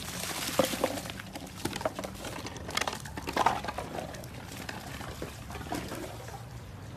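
Shallow water splashing and sloshing as an English bulldog runs through a flooded yard and shoves a foam bodyboard across wet pavement, in irregular splashes and scrapes. The splashing is loudest at the start and again about halfway through.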